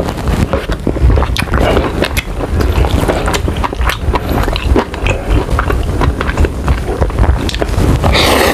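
Close-miked chewing and wet mouth clicks of someone eating, followed near the end by a brief noisy slurp of instant noodles.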